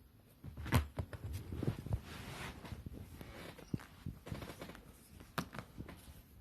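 A kitten scampering and pouncing while it plays, its paws and body making soft thumps and scuffles on the floor, with a few sharp clicks.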